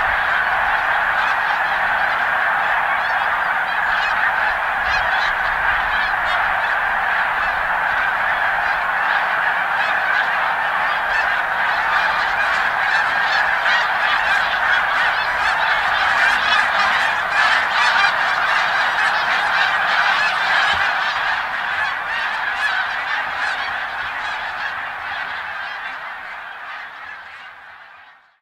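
A vast flock of snow geese in flight, thousands of honking calls overlapping into one steady, dense chorus that fades out over the last few seconds.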